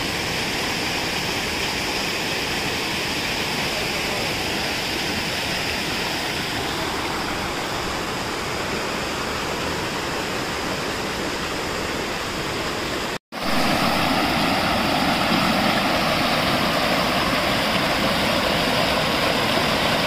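Rushing water of a rocky mountain stream tumbling over stones, steady and unbroken. It cuts out briefly about 13 seconds in, then comes back louder: water cascading down a small waterfall over boulders.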